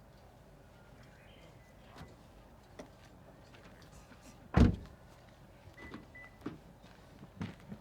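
A few small clicks and knocks, then one loud, short thump about four and a half seconds in.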